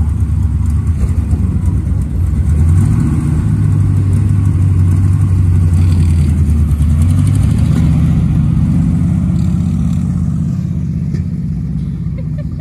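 Hobby stock dirt race car's engine running loud and revving up and down as the car turns tight circles on loose dirt, easing off near the end.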